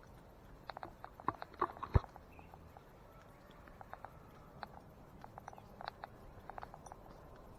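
Footsteps crunching irregularly along a woodland trail, with one sharp knock about two seconds in.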